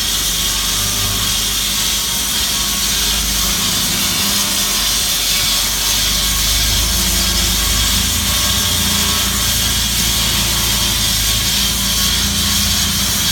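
Cosen C-320NC automatic metal-cutting band saw running steadily with its blade cutting through stock, a continuous high hiss over a low hum.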